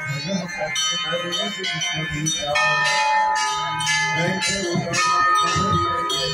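Many hanging brass temple bells of different sizes ringing together in overlapping long tones. Fresh strikes come about two and a half seconds in and again about five seconds in, each starting a new bright ringing tone.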